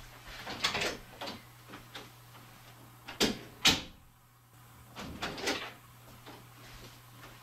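Interior door being opened and shut: scattered latch clicks and knocks, the loudest a pair of sharp knocks about three seconds in.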